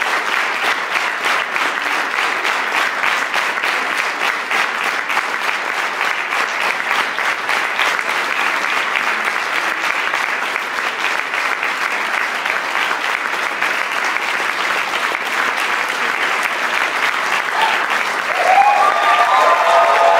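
Audience applauding steadily, a dense crowd of hand claps. Near the end, voices rise over the clapping and it grows louder.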